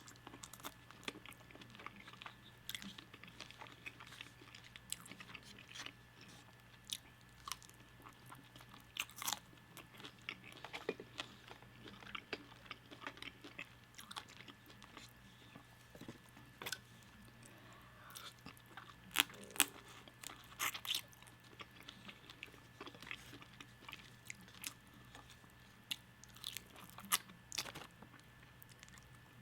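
Close-miked eating of crispy fried food: irregular crunchy bites and wet chewing, with sharp crackles scattered throughout and a cluster of louder crunches about two-thirds of the way in.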